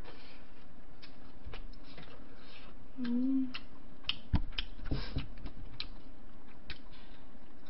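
Close-miked eating and table sounds: scattered small clicks of chewing and utensils, a short hummed "mm" about three seconds in, and a few louder knocks of tableware around four to five seconds in.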